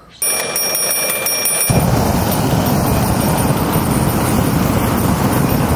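A knockoff Lightning McQueen toy rings with a high, pulsing bell-like tone. About a second and a half in, a flamethrower is turned on it and a steady, loud rushing roar of flame takes over, with the ringing faintly under it.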